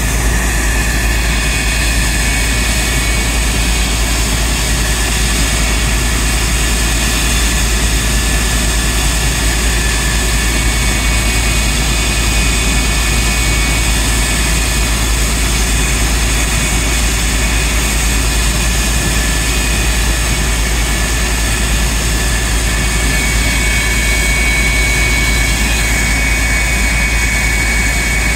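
CF-104D Starfighter's General Electric J79 turbojet running steadily during a ground run: a loud, even rush of engine noise with a high, steady whine over it.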